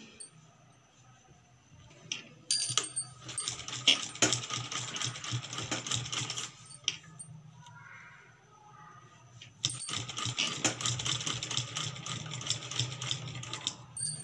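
Sewing machine stitching in two runs of about four seconds each: a fast, even clatter of needle strokes over a low mechanical hum. It stops for a few seconds in the middle, then runs again.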